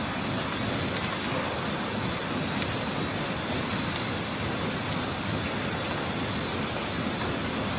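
Steady rushing night-time outdoor ambience with a thin, steady high-pitched insect drone and faint, evenly repeated high chirps; a single sharp click about a second in.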